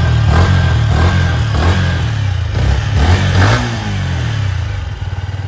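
Yamaha XSR 125's single-cylinder four-stroke engine on its stock exhaust, revved in quick repeated throttle blips, about two a second, then dropping back to a steady idle about four seconds in.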